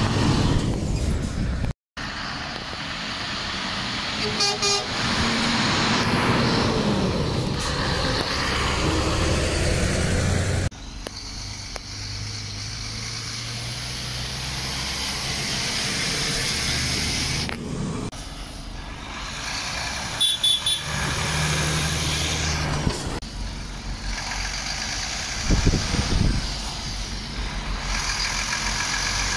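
Lorry engines running as trucks pass, with two short truck horn toots, about four seconds in and about twenty seconds in. The sound cuts off abruptly several times between shots.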